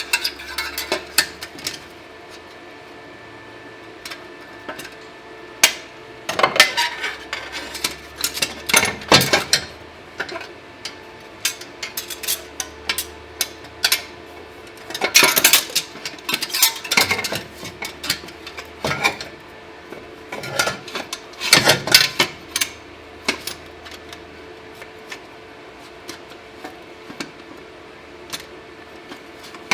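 Hand tools knocking and clattering against metal in irregular runs of sharp knocks with short pauses between, busiest about a quarter, halfway and three-quarters of the way through, over a steady low hum.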